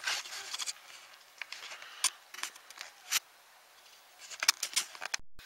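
Rustling and sharp clicks of handling close to the microphone, with clothing and fingers brushing near the camera. Busiest at the start and again near the end, sparse in the middle, and the sound cuts out completely for a moment just before the end.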